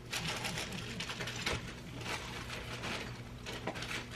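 Rummaging through a cluttered closet: items being shifted and handled, an irregular run of rustles, clicks and knocks over a steady low hum.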